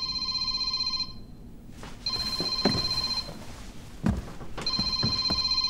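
Telephone ringing with an incoming call: a trilling electronic ring, three rings of about a second each with gaps of about a second between them.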